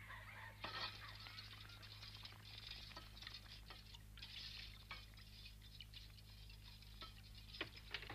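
Food frying in a pan on a stove: a faint, steady crackle and sizzle that starts about half a second in, with a couple of sharper clicks near the end.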